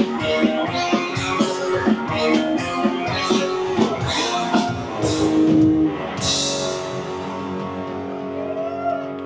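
Live rock band playing, with distorted electric guitars, electric bass and a drum kit hitting steady beats. About six seconds in a loud crash hits, and after it the chords are left ringing on without the beat.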